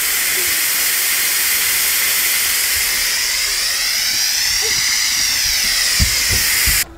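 Instant Pot pressure cooker venting steam through its release valve, letting out the pressure left after the natural release: a loud, steady hiss that cuts off suddenly near the end.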